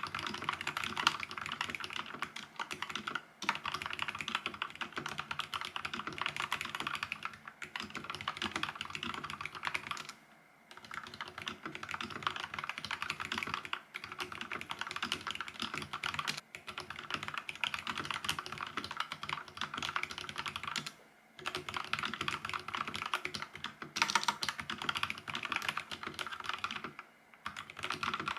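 Fast, continuous typing on a Vissles V84 wireless mechanical keyboard with linear switches, a dense run of quiet key clicks broken by three brief pauses.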